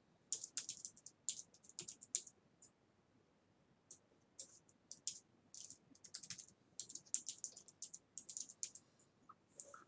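Typing on a computer keyboard: faint, quick runs of keystrokes, with a pause of about a second around three seconds in.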